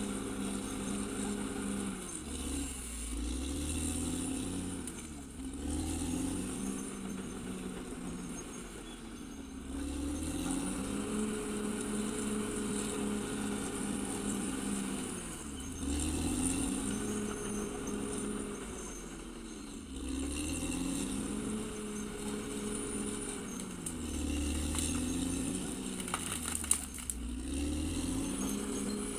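Caterpillar D6R XL bulldozer's diesel engine running, its pitch repeatedly dropping and climbing back up about every four to five seconds as it works. A few sharp clicks come near the end.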